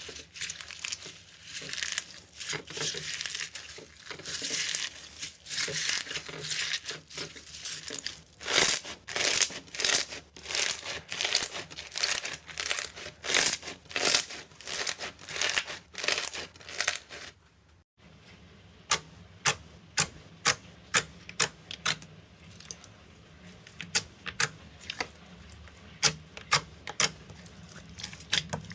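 Slime being squeezed and pressed, giving a dense crackling and crinkling. After a brief gap about two-thirds of the way through, it changes to separate sharp pops, a few each second.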